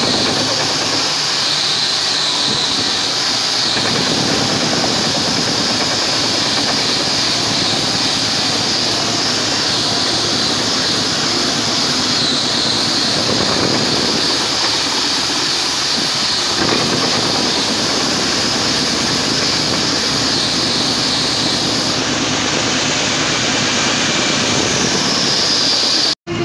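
Milling machine cutting a metal block with an end mill: a steady, loud, high-pitched cutting whine over the spindle running. It cuts off abruptly just before the end.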